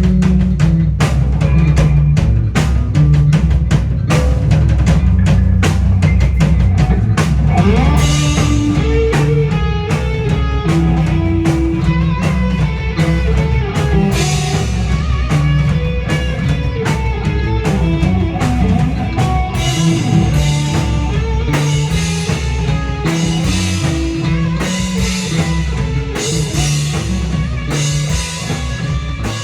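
Live rock band playing an instrumental passage: drum kit beating steadily over a heavy bass, with a guitar melody coming in about eight seconds in.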